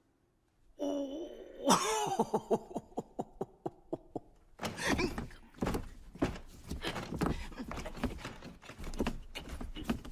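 A man's wordless vocalizing: a short wavering cry, then a run of quick gasping pulses that slow over a couple of seconds. From about halfway in comes a dense, irregular scratching and clicking as his hands work at a seam in a wall.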